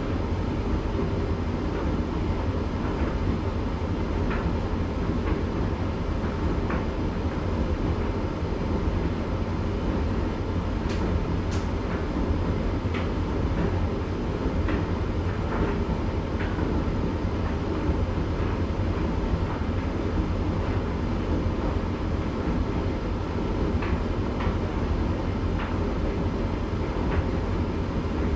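Candy GrandO tumble dryer running in its cool-down stage: a steady low drum and motor hum, with scattered light ticks as the load tumbles.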